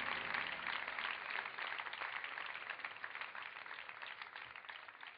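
Audience applauding, a dense patter of many hands that fades away steadily.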